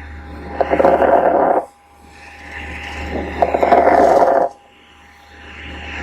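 Recorded human lung sounds: breathing in a repeating cycle about every three seconds, with a quieter, gradually building phase followed by a louder, rough, noisy phase about a second long, over a faint steady tone.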